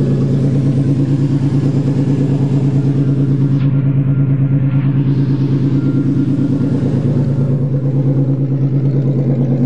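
1990 Chevrolet Celebrity's engine idling steadily and evenly, running smoothly.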